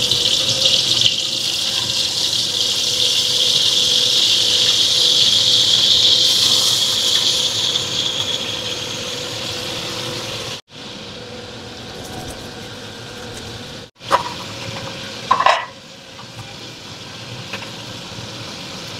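Salted mackerel frying in hot oil in a wok: a loud, steady sizzle as the fish are laid in. The sizzle stops abruptly about ten seconds in, a quieter hiss follows, and near the end there are two short metallic knocks.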